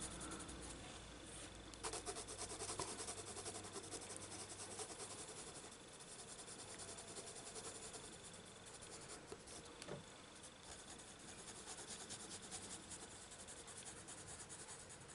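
Faint scratching of a coloured pencil shading lightly over a printed book page in quick repeated strokes.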